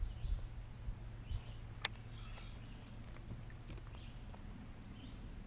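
Faint handling knocks and one sharp click about two seconds in, over a steady low rumble.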